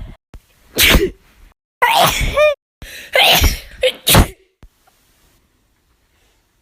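A woman sneezing four times in quick succession, each sneeze short and loud, with abrupt cuts between them.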